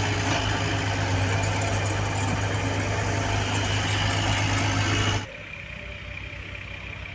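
Diesel engine of a construction machine running steadily with a strong low hum. About five seconds in, the sound drops suddenly to a quieter engine running.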